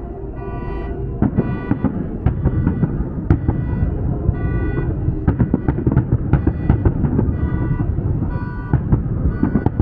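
Aerial fireworks going off: dense crackling and popping bursts over a continuous rumble of booms. Through it runs a loud pulsing electronic tone that switches on and off about twice a second, like an alarm.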